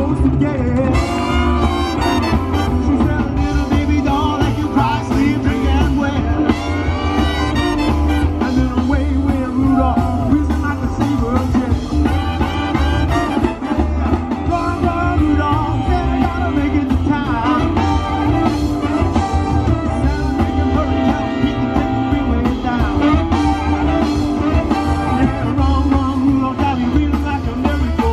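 A live swing band playing a rock-and-roll number, with saxophones and trumpets over drums and electric guitar.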